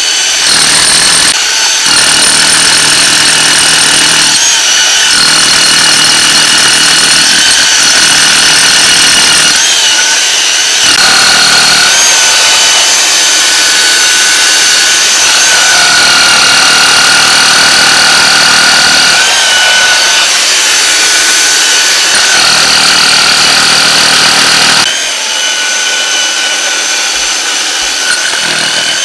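Rotary hammer drill boring a long masonry bit through a stone and concrete foundation: a steady loud motor whine over rapid hammering, with several short breaks where the hammering drops out. In the last few seconds the hammering stops and the tool runs quieter.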